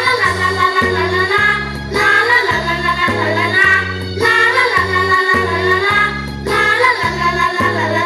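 A Thai children's dance song playing: singing over music with a steady, repeating bass beat.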